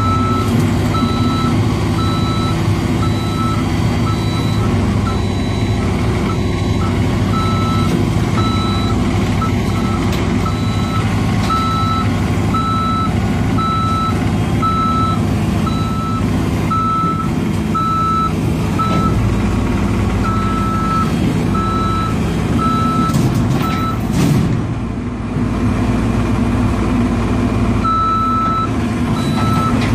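CAT compact excavator's diesel engine running under load while it tracks up onto a trailer, with its travel alarm beeping about once a second. The beeping stops for a few seconds near the end, then starts again.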